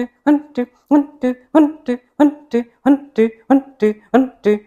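Kapalabhati breathing strokes: rapid, evenly paced forceful exhalations, each carrying a short voiced hum, about three a second.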